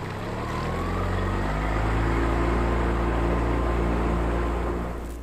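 Small outboard motor on an inflatable dinghy running under way, speeding up about a second in with a slight rise in pitch, then holding a steady drone and easing off near the end.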